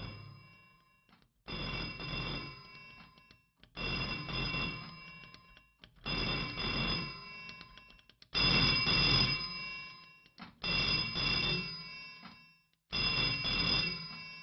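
An old telephone's bell ringing in a double-ring pattern, six rings about two and a half seconds apart, each fading out before the next.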